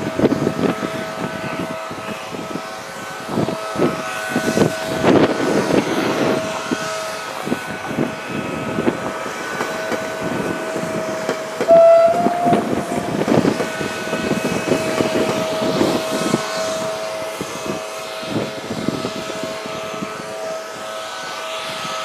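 A Stadler FLIRT passenger train runs past close by about halfway through and then draws away, amid gusting wind on the microphone. A steady high whine sounds throughout.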